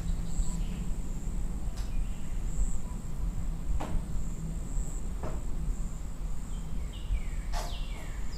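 Forest campfire ambience: a steady high cricket trill over a low rumble of fire, with a few sharp crackles and some short, falling bird chirps near the end.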